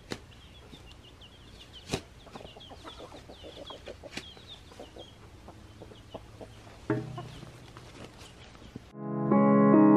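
A spade strikes into the soil and roots a few times, about two seconds apart, with birds calling in the background. Piano music starts abruptly near the end.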